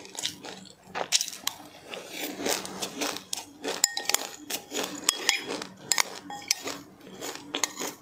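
Close-up crunching and chewing of a mouthful of sesame seeds with passionfruit, a rapid irregular crackle of small bites. A utensil clinks against a dish a couple of times, about four and five seconds in.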